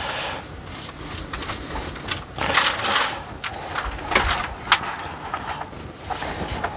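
Soil and moss being scraped and crumbled off the top of a young yew bonsai's waterlogged root ball: a run of irregular rustling scrapes with small sharp clicks.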